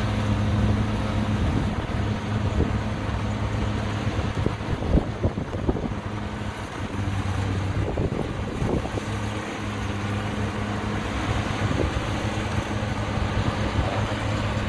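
Kubota DC60 combine harvester's diesel engine running steadily with a low hum, cutting rice. Irregular knocks and clatter from the machine come in the middle.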